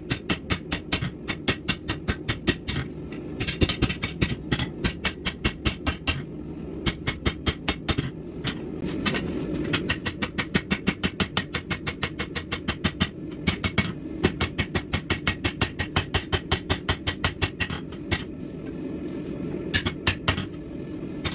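Rapid hammer blows on steel at the anvil, about five a second, in runs broken by brief pauses, over a steady low rumble.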